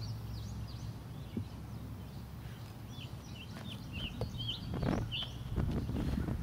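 Small birds chirping over and over in short high notes, with a single sharp knock about five seconds in as a bat strikes a tossed baseball.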